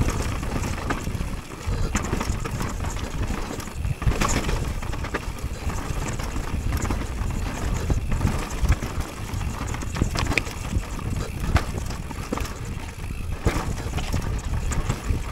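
Mountain bike riding fast down a dirt trail: a steady low rumble and rush of tyres and wind, broken by frequent sharp clicks, knocks and rattles as the bike hits bumps and roots.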